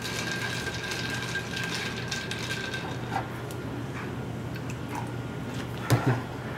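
Liquid poured from a can into a stainless-steel cocktail shaker, with light clinks of cans, bottles and metal. A sharper knock about six seconds in.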